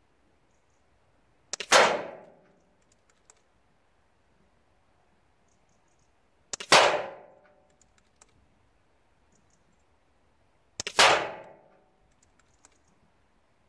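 Air Arms S510 SL Carbine .22 pre-charged pneumatic air rifle fired three times, about five seconds apart: each a sharp report with a short ringing tail, with faint clicks between the shots.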